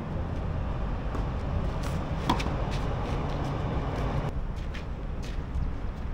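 Tennis rally: several sharp racket-on-ball hits and bounces a second or less apart, over a steady low background rumble.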